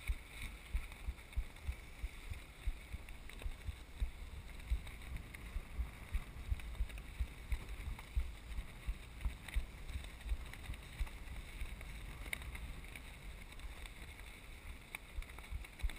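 Wind buffeting the microphone in irregular low thumps, with choppy water splashing against a small fiberglass boat's hull.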